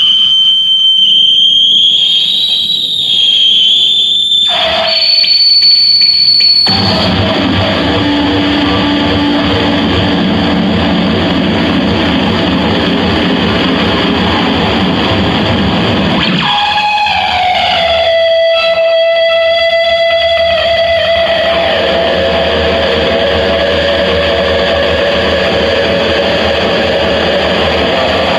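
Harsh noise music: loud distorted noise with shrill, wavering high tones that cut off abruptly about six seconds in. A thick, steady wall of noise follows, and about sixteen seconds in a tone slides down and then holds over it.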